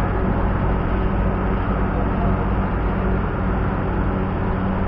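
Steady, loud mechanical drone of a running engine or heavy machinery, a constant low hum with noise over it, loud like being inside an engine room.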